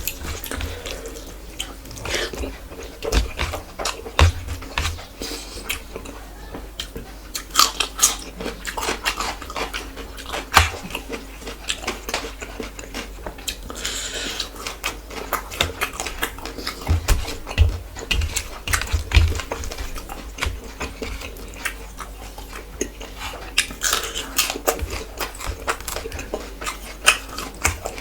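A person chewing and eating rice with fish curry close to the microphone: irregular wet smacks and clicks of the mouth.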